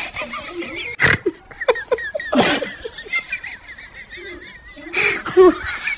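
Laughter with quivering, wavering pitch, broken by two sharp loud hits, about a second in and about two and a half seconds in.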